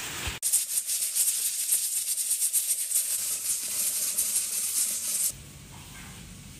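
Pressure cooker at full pressure, its valve rattling rapidly and hissing as steam escapes; it starts about half a second in and cuts off suddenly after about five seconds.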